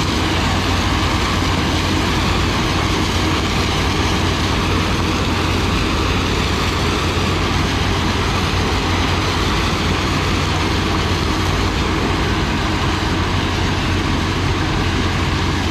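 Heavy diesel engines of a sugarcane harvester and a New Holland T7 tractor running steadily under load, with the rush of chopped cane billets pouring from the harvester's elevator into the towed trailer.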